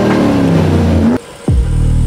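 Dubbed-in truck engine sound effect revving up and down. It breaks off a little past halfway, then goes on as a steady low engine hum.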